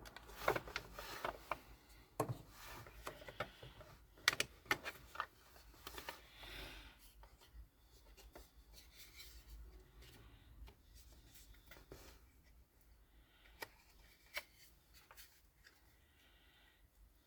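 Small plastic and metal laptop parts being handled during a hard-drive-to-SSD swap: a quick run of sharp clicks, knocks and scraping in the first six seconds, then scattered clicks and soft rubbing.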